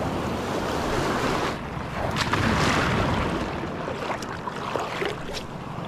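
Sea waves washing in, with wind on the microphone; the wash swells louder about two seconds in, then eases off.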